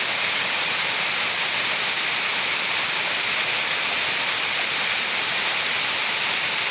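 Waterfall: a steady rush of falling water, even and unbroken, with most of its sound high and hissing.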